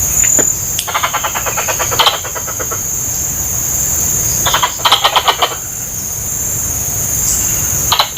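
Adult plantain squirrel giving two bouts of rapid, evenly pulsed chattering calls, each about a second long, the second about three seconds after the first. A steady high-pitched hiss runs under them.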